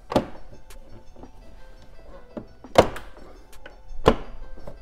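Plastic retaining clips of a BMW F10 M5 kidney grille snapping into the bumper as the grille is pressed in by hand: three sharp snaps, one right at the start, one a little under three seconds in and another about a second later.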